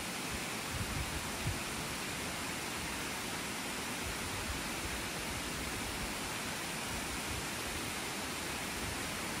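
Water pouring steadily down a curved concrete dam spillway face into the pool below, making a constant rushing noise.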